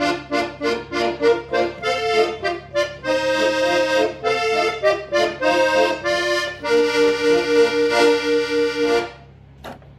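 Piano accordion playing a tango: short, rhythmic chords at first, then held chords, ending on a long final chord that stops about nine seconds in.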